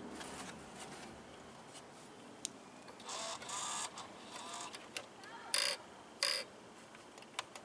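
Radio-controlled car whirring in a few short bursts, with scattered clicks, as its receiver intermittently responds to the transmitter. The radio link is cutting in and out after a crash.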